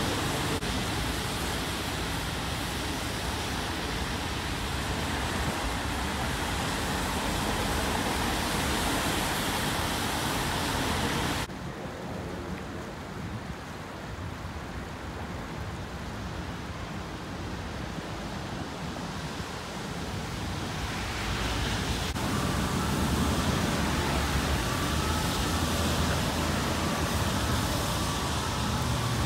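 Steady outdoor rushing noise of city traffic and the swollen river's flow. It drops abruptly about a third of the way in and builds back up over the last third.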